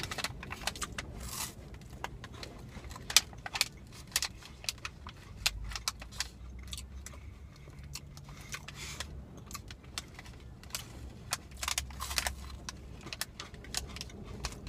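Crinkling of a protein bar's plastic wrapper being handled, an irregular run of crackles and clicks, with chewing.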